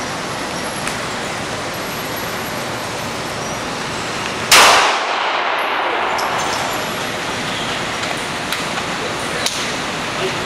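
Handgun shot fired once about halfway through, a loud sharp crack with an echoing tail in an indoor range. A few much fainter sharp ticks come before and after it.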